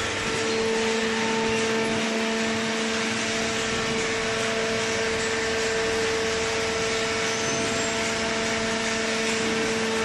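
Hydraulic power unit of a horizontal cardboard baler running: a steady electric-motor-and-pump hum with an even whine, unchanging throughout.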